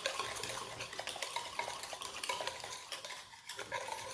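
Small whisk stirring a whole egg into almond flour and xylitol, a steady run of light clicks and scrapes against the container.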